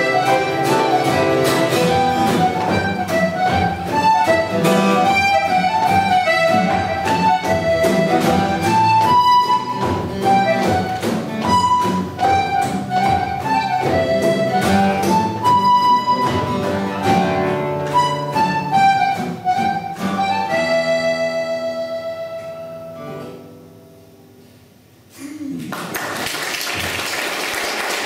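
A concertina and an acoustic guitar playing a quick traditional Welsh tune. They end on a held chord that fades away, and after a short pause the audience breaks into applause near the end.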